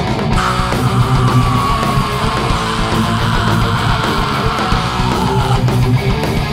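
Heavy metal band playing live: distorted electric guitars, bass and drum kit. About half a second in, one long high note is held and slowly slides down in pitch until near the end.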